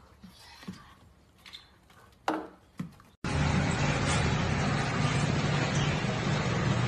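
A few faint clicks and one sharper knock, then an abrupt switch about three seconds in to a loud, steady mechanical rumble with a low hum.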